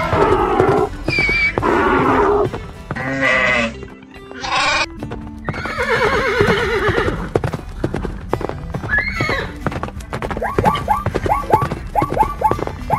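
Background music overlaid with a string of cartoon animal-call sound effects, one call after another with short breaks between them. Near the end comes a quick run of short rising yelps, about four a second.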